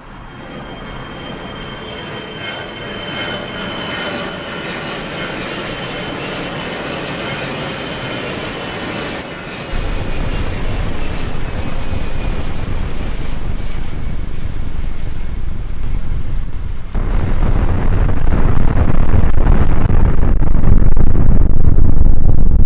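A loud roar rising out of silence: faint tones slide slowly downward over the first ten seconds, then a heavy low rumble comes in and grows louder again about seventeen seconds in.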